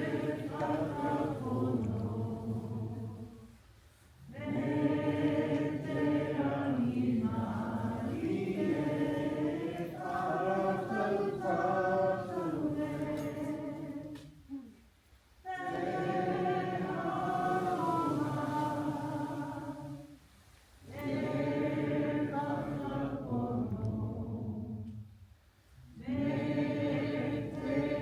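A group of voices singing a Māori waiata unaccompanied, in long held phrases with short breaks for breath between them.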